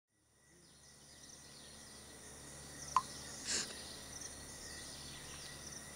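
Tropical rainforest ambience fading in: a steady high-pitched insect drone, with a sharp click about three seconds in and a short hiss just after.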